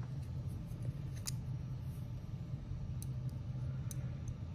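A few light, scattered clicks from a zirconium magnetic fidget with Teflon pads being handled and its pieces knocked together, over a steady low hum.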